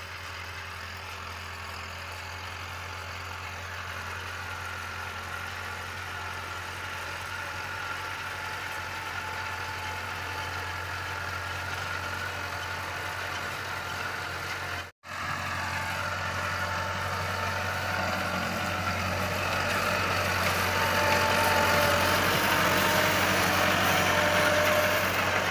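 Red 385 tractor's diesel engine running steadily under load while pulling a tine cultivator through tilled soil, growing louder as it comes close in the last third. The sound cuts out for an instant about fifteen seconds in.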